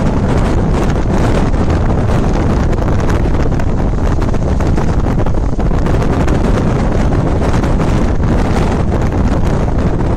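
Wind buffeting the microphone on a moving passenger train, over the train's steady running noise.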